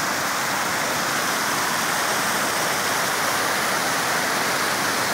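Brown floodwater rushing and churning over a small earthen reservoir's spillway, a loud, steady sound of moving water: the reservoir is full and spilling over.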